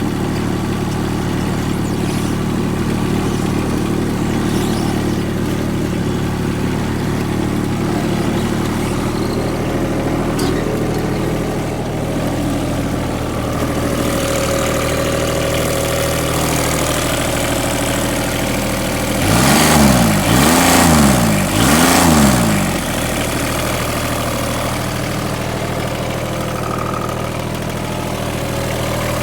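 Kubota G1700 ride-on mower's diesel engine running steadily. About two-thirds of the way through it gets louder and its pitch swings up and down twice in quick succession.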